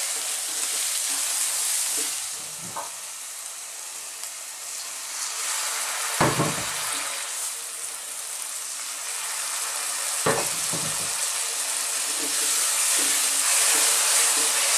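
Onions and berbere spice sizzling in oil in a nonstick frying pan while being stirred with a wooden spoon, with a few knocks along the way. Water is poured in partway through to keep the berbere from burning as it fries.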